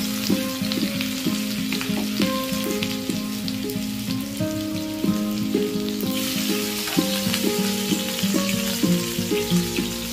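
Chopped ginger, garlic and green chillies sizzling in hot oil and butter on a cast-iron tawa. The sizzle grows louder about six seconds in as the chillies go in. Background music with a plucked melody plays underneath.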